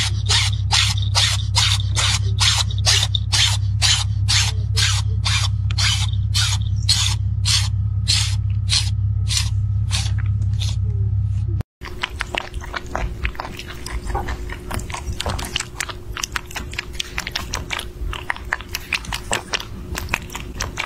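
Rhythmic hissing bursts, about two a second over a steady low hum, for the first half. After a short break, a rabbit chewing and biting into a mandarin orange, with many quick, irregular crunchy clicks.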